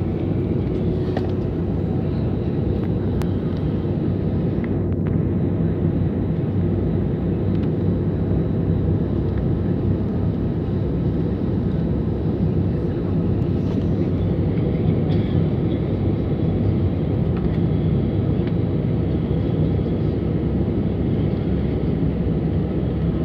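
Steady low rumble inside the cabin of a jet airliner as it taxis, engines running at low power, with no rise in thrust.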